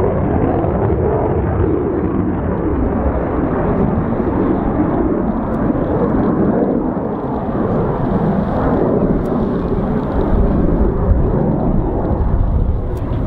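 Saab 37 Viggen's single Volvo RM8 turbofan heard in flight overhead: a loud, steady jet rumble whose tone slowly wavers and sweeps up and down as the aircraft moves across the sky.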